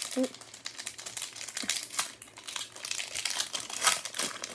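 Foil wrapper of a Pokémon booster pack crinkling and tearing as it is pulled open by hand: a dense run of sharp crackling rustles, loudest near the end.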